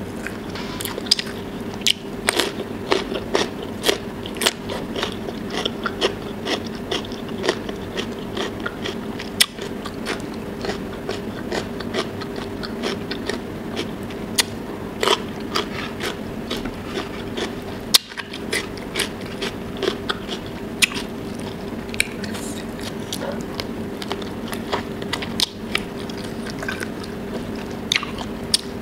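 Close-miked eating: crisp crunching of raw cucumber sticks dipped in sauce, then chewing with wet mouth clicks and smacks, several sharp crunches a second. A steady low hum runs underneath.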